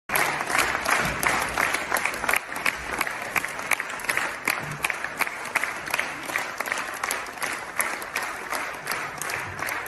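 Audience applauding: many hands clapping steadily, slowly dying down near the end.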